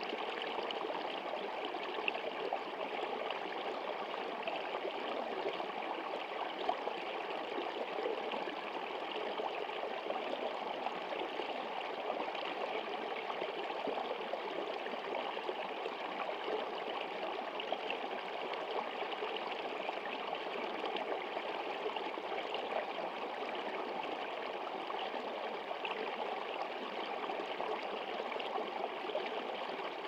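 Small stream running steadily, water rippling and pouring over a low icy ledge, an even rushing wash that does not let up.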